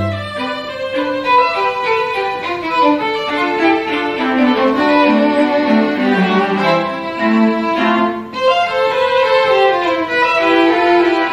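String quartet of two violins, viola and cello playing live, several bowed lines moving at once, with a brief drop in sound about eight seconds in.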